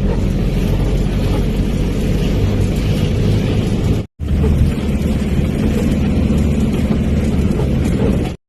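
Motor vehicle engine and road noise, a steady low rumble. It cuts out for a moment about four seconds in, then resumes.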